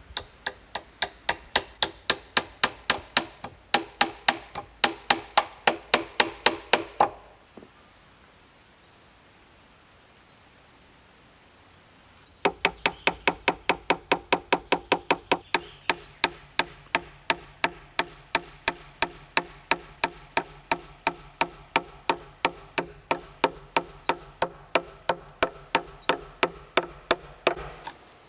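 A tool striking wood in quick, even blows, about four a second, each with a short ring. There are two runs of strikes, one about seven seconds long and then, after a pause of about five seconds, a longer one. Faint bird chirps come through in the pause.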